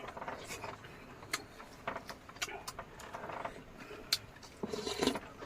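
Eating sounds: irregular sharp clicks and crunches from food being chewed and handled, with scattered clinks.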